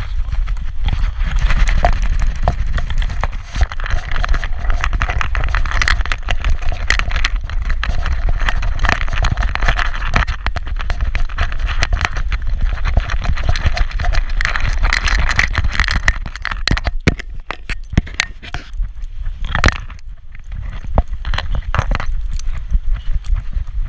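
Metal leash clip and tag rings on a small dog's collar jingling and clinking close to a back-mounted action camera as the dog trots along, over a low rumble of camera handling noise and street traffic. The jingling thins to scattered clinks about three-quarters of the way through.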